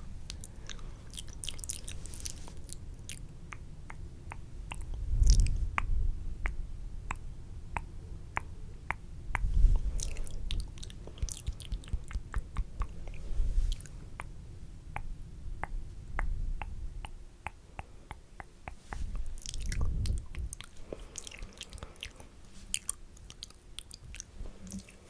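Close-miked wet mouth sounds: quick spitty clicks and smacks, with low muffled thuds about five, ten and twenty seconds in.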